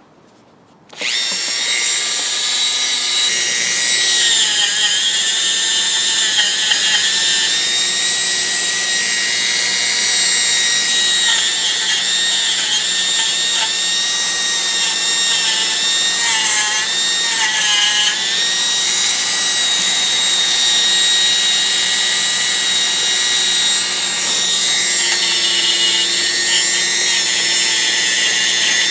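Dremel rotary tool switched on and running at high speed against rusty steel pliers, a high-pitched whine whose pitch dips briefly a few times.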